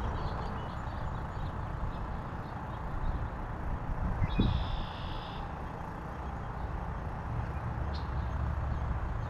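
Steady low outdoor background rumble, with one short high-pitched call lasting about a second a little over four seconds in.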